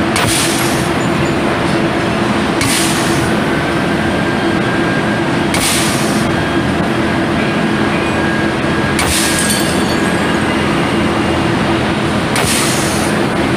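Small degating hammer running continuously against metal castings, a loud, rapid, steady hammering as it breaks the gates and risers off the castings. A short hiss rises over the hammering about every three seconds.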